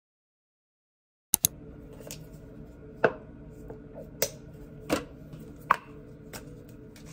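Silence for about a second, then a string of sharp clicks and taps as toiletry bottles and containers are picked up and handled at a bathroom sink, over a steady low hum in a small room.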